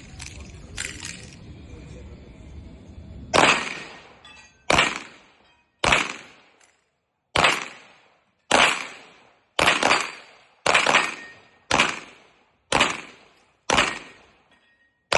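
Pistol shots fired one at a time at a steady pace of roughly one a second, about ten in all, starting a few seconds in. Each is a sharp crack that dies away over most of a second.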